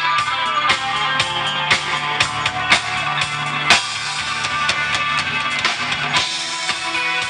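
Live band playing an instrumental passage with no singing: a drum kit keeping a steady beat under electric guitar and bass. The low bass drops out about six seconds in.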